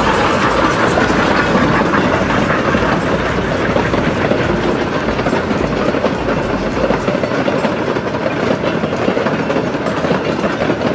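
Durango & Silverton narrow-gauge steam train's passenger cars rolling past, a steady rumble of wheels on rails. The deepest part of the rumble drops away about seven seconds in.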